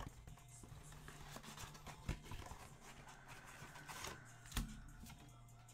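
Cardboard of a Donruss Optic basketball blaster box being torn open and handled: faint tearing and crinkling with small clicks, and two sharper knocks, about two seconds in and about four and a half seconds in.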